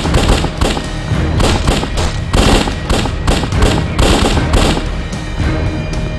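A rapid, irregular volley of pistol shots from several handguns over dramatic music, thinning out near the end.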